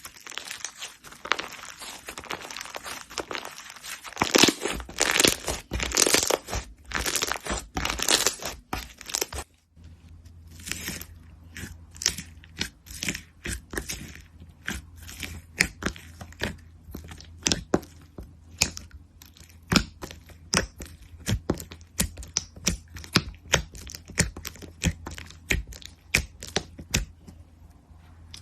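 Slime being squeezed and stretched by hand: dense crackling for about the first nine seconds, then, after an abrupt change, sparse sharp clicks and pops several times a second.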